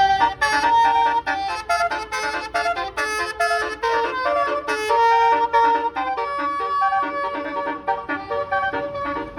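Bus 'telolet basuri' musical horn playing a fast tune, a quick run of reedy pitched notes one after another.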